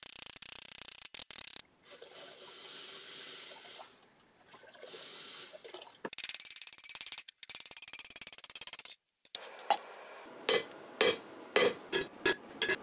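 A steady hiss broken off abruptly several times, then, from about ten seconds in, sharp hammer blows, about two a second, on a 1-inch rebar rod stood on its red-hot end on the anvil, upsetting (thickening) that end to form a bolt head.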